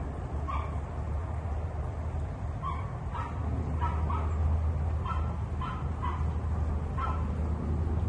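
A string of short animal calls, about ten of them, coming every half second to a second, over a steady low rumble.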